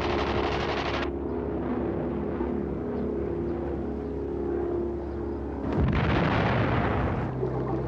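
Aircraft engines droning steadily, then a loud blast about six seconds in, like anti-aircraft fire.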